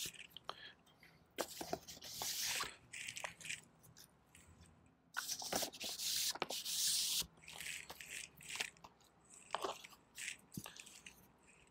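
Paper LP inner sleeves and cardboard record jackets rustling and sliding against each other as they are handled, in two longer rustles with scattered light taps and clicks.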